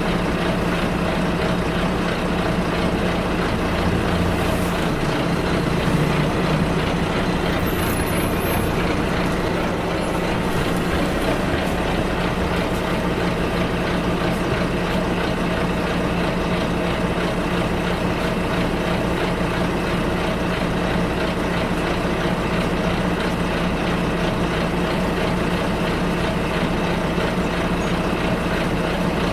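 Bus ride heard from inside the cabin: the engine hums steadily under continuous road noise. The engine note shifts briefly about five seconds in, and a few faint high chirps sound a little later.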